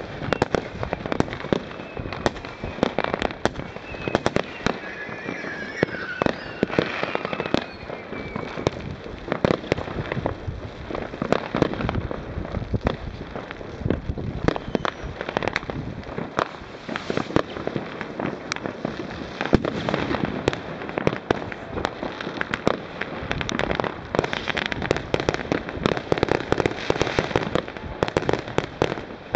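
Many fireworks going off at once: a dense, continuous crackle of firecrackers and bangs, some louder and nearer, others fainter. A few whistles rise above them about five to eight seconds in.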